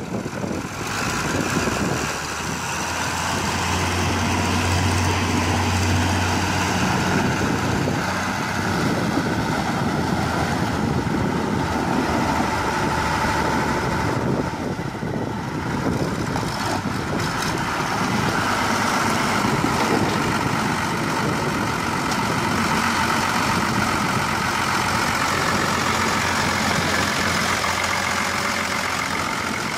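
John Deere 3420 tractor's diesel engine running steadily while the tractor is driven about, with a heavier low hum about four to seven seconds in.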